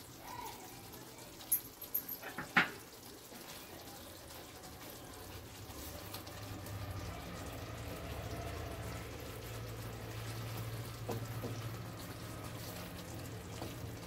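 Wooden spatula stirring a thick, wet curry in a nonstick pan, with a few sharp knocks against the pan about two seconds in. A low steady hum comes in after about five seconds.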